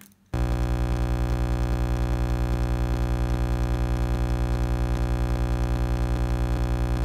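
A loud, steady buzz tone that starts abruptly just after the start, holds one unchanging pitch with a fast even flutter, and cuts off abruptly at the end.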